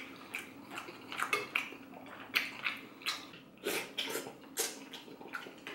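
Close-up eating sounds from a bowl of beef noodle soup: a string of short, irregular wet slurps and chewing smacks, with light clinks of utensils against the bowl.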